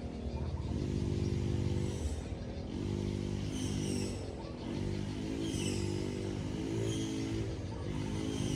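An engine running, its pitch holding steady for a second or two at a time between short dips, with repeated short high chirps over it.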